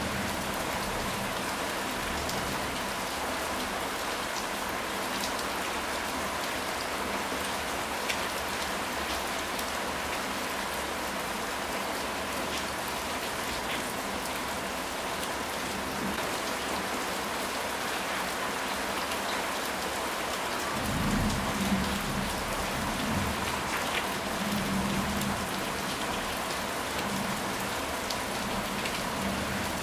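Steady rain falling on a surface, an even hiss with scattered sharp drop ticks. About two-thirds of the way through, a low rumble of thunder rolls for several seconds.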